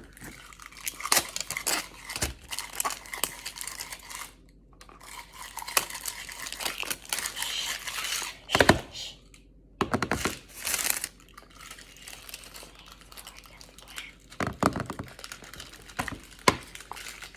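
Plastic packaging crinkling and tearing in uneven handfuls, with scattered sharp clicks and crackles, as a fidget toy is unwrapped.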